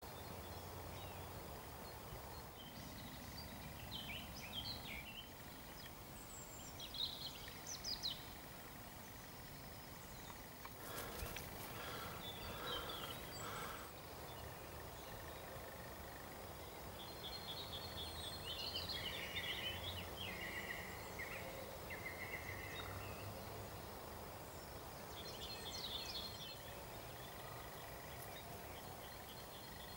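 Faint steady outdoor background noise with songbirds singing short chirping phrases now and then.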